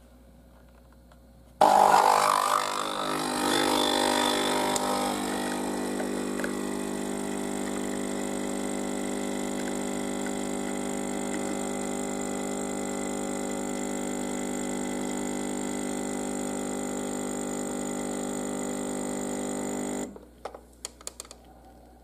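Nespresso capsule coffee machine's pump starting abruptly and loudly, rough for the first few seconds, then buzzing steadily as the coffee is pumped through the capsule. It cuts off suddenly near the end, followed by a few short sputters.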